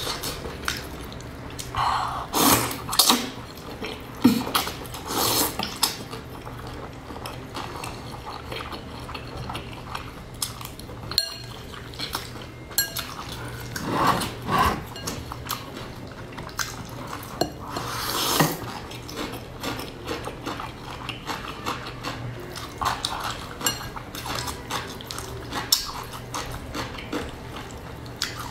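Mukbang eating sounds: chopsticks clicking and scraping against a ceramic bowl as oily wide noodles are stirred and lifted, with wet chewing and slurping coming in irregular bursts.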